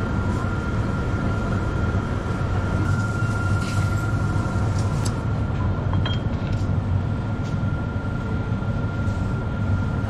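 Steady machine hum with a constant thin high whine from a refrigerated drinks display case, and a few light clicks about six seconds in as a glass beer bottle is taken off the shelf.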